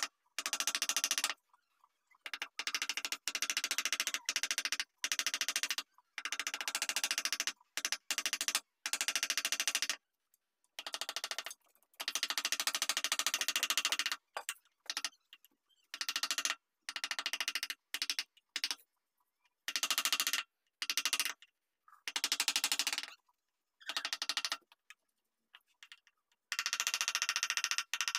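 Wood carving chisel driven by a wooden block mallet into a carved wooden panel: runs of rapid taps, each run lasting a second or two, broken by short pauses.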